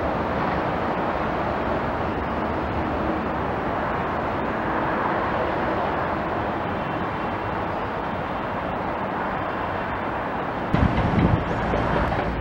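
Steady, even rumble of distant demolition-site machinery, hydraulic excavators working rubble. Near the end, louder irregular low rumbling begins.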